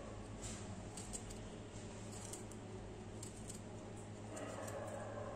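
Knife cutting a peeled raw potato into long strips: a scatter of faint, crisp little cuts and clicks.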